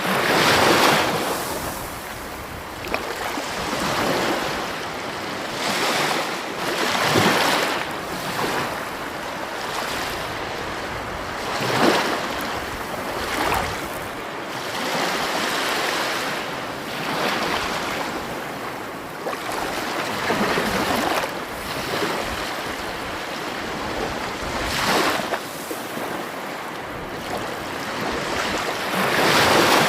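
Sea waves washing ashore: a steady hiss of surf that swells into louder breakers every few seconds.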